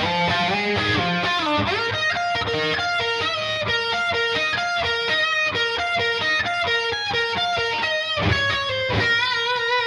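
Epiphone Firebird Studio electric guitar played through an amp: a fast single-note lead line with string bends and a repeated note pulsing under it. A chord is struck about eight seconds in, then held notes waver with vibrato.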